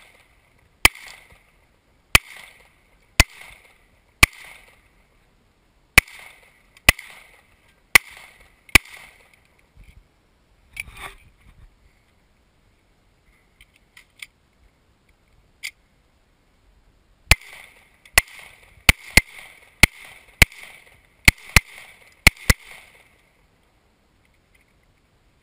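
Handgun firing: eight shots at about one a second, a pause of several seconds with a few light clicks, then a quicker string of about ten shots. Each shot leaves a short ringing tail.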